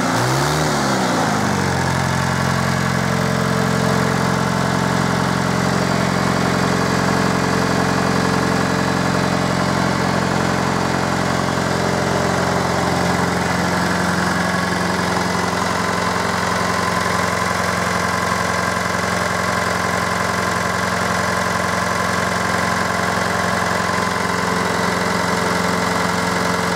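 A 1977 JCB 2D Mk 2 backhoe loader's diesel engine is running. Its revs dip and pick up in the first couple of seconds, then it settles into a steady idle. The engine has been freshly repaired with one new piston and two new cylinder liners.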